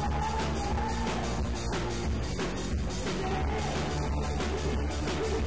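Live electro-punk band playing: electric guitar over a steady driving beat.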